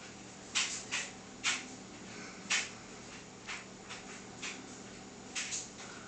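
A cat pawing and biting at a toy mouse: about a dozen short, irregular scratchy rattles and clicks, the loudest about two and a half seconds in.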